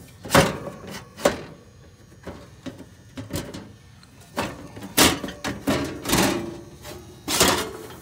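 Irregular knocks and scrapes of handling, with a handful of short noisy bursts a second or more apart.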